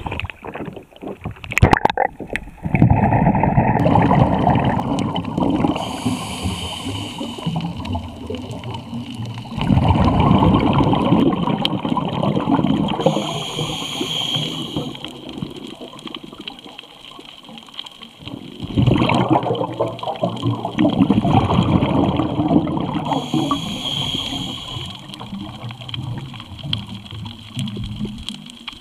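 Water sloshing and rushing, heard underwater with a muffled, gurgling tone. It swells up loudly three times and fades between the surges.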